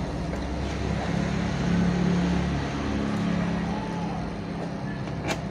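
A motor vehicle engine running steadily, louder about two seconds in, with one sharp click near the end.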